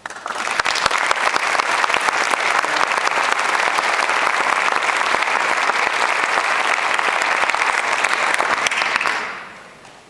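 Audience applauding: dense clapping that starts all at once, holds steady, and dies away about nine seconds in.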